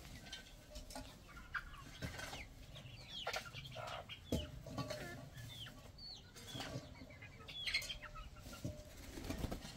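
A flock of young chickens clucking, with short calls scattered through the whole stretch, over a few brief knocks and scrapes.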